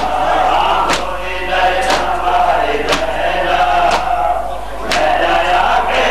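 A crowd of men chanting a noha, a Muharram lament, in unison, with a sharp collective slap about once a second: hands beating on chests in matam, keeping time with the lament.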